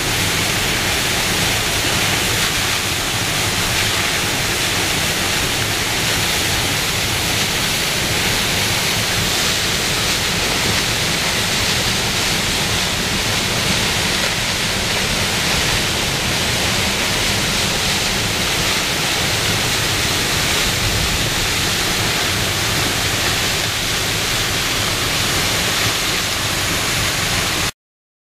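Falling Springs Falls, a tall waterfall dropping freely over a cliff onto rocks: a steady, loud rush of falling water that cuts off suddenly near the end.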